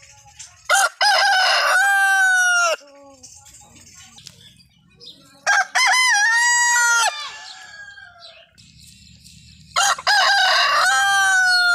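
Roosters crowing three times, about four seconds apart. Each crow is a few short notes followed by one long held note that drops away at the end.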